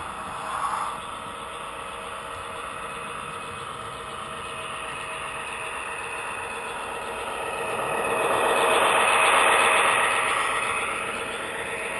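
HO scale model diesel locomotive's sound-decoder engine sound, with the train's wheels running on the track. It grows louder as the train comes round the curve and passes close by, about eight to ten seconds in, then eases off a little. There is a brief louder sound just under a second in.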